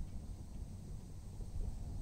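Outdoor ambience: an uneven low rumble of wind buffeting the microphone, with a faint steady hiss.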